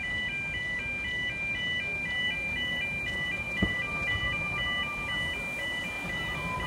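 Road level crossing warning alarm sounding for an approaching narrow gauge steam train: an electronic two-tone warble repeating steadily over and over. A single sharp thump comes a little past halfway.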